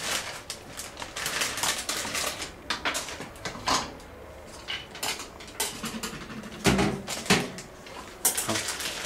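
A plastic bag crinkling while fennel stalks are dropped into a jar, rattling and clicking against its sides, with two duller knocks about two-thirds of the way through.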